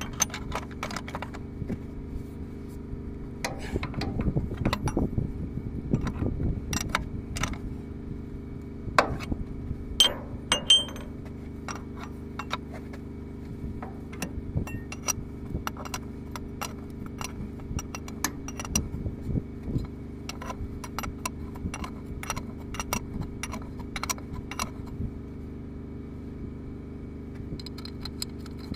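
Metal wrench clicking and clinking against fittings, in many short irregular knocks, loudest about ten seconds in, as a fitting on a Kirovets K-704 tractor's transmission filter housing is loosened. A steady low hum sits underneath throughout.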